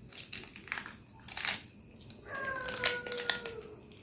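Clear plastic cake packaging crinkling and crackling as cake is broken out of it, in scattered sharp crackles. Partway through, a drawn-out, slightly falling hum lasts about a second and a half.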